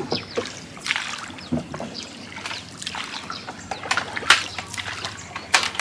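Water splashing and dripping as a small wooden boat is paddled and a hooked fishing line is pulled in over its side, with irregular sharp knocks; the loudest come about four seconds in and just before the end.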